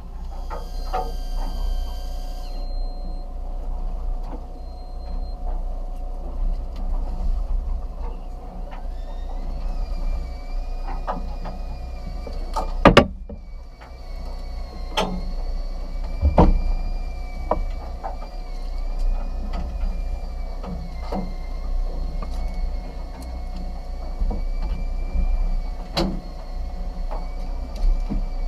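Steady low engine rumble of a fishing boat, with a wavering high whine setting in about a third of the way through. Sharp knocks and clacks come every few seconds, the loudest near the middle.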